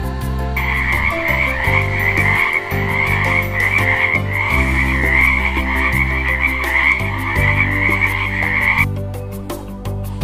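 Tree frog calling in a continuous fast rasping trill that starts about half a second in and stops abruptly near the end, over soft background music.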